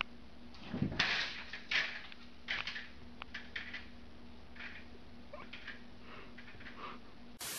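A cat scuffling as it bats at a small object on a hardwood floor and scrambles away: an irregular run of short scuffs and rustles, over a faint steady hum.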